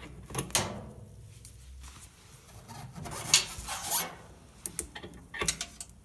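Hand-handling noises on a dryer's sheet-metal cabinet: scraping and several sharp metallic clicks as a coiled door spring is pulled down and unhooked from the frame, with a run of small clicks near the end.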